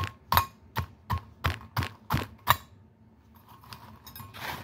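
Butter knife jabbing down through crushed cookies against the bottom of a dish: eight sharp clicks with a short ring, about three a second, then softer scraping and rustling near the end.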